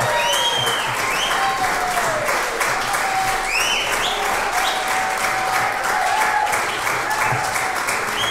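Audience applauding steadily, with cheering voices rising and falling over the clapping.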